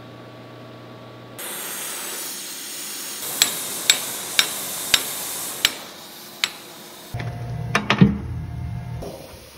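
Hand hammer striking a glowing steel hook stem held in a bench vise: six sharp, ringing blows about half a second apart. A steady hiss comes before them and a few clunks follow.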